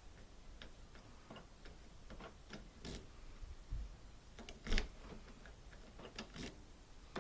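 Irregular light clicks and taps of small hard objects being handled, spaced unevenly, the loudest about five seconds in.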